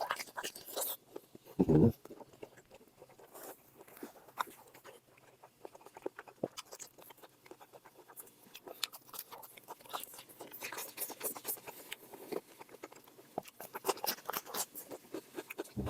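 A person chewing and eating close to the microphone: irregular short mouth clicks and smacks, with one louder low thump about two seconds in.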